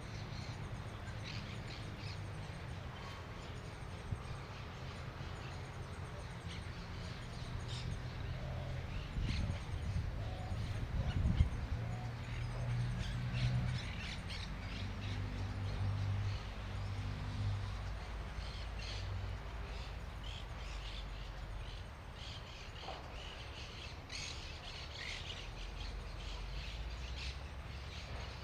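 Birds calling outdoors, many short calls scattered through, over a steady low rumble that swells for a while in the middle.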